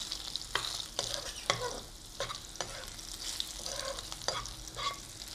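Crushed garlic with bay leaf and cinnamon sizzling in hot oil in a non-stick pan while a spatula stirs and scrapes it, giving sharp taps every half-second or so over a steady sizzle. This is the sauté stage of the tempering, frying the garlic until its raw smell is gone.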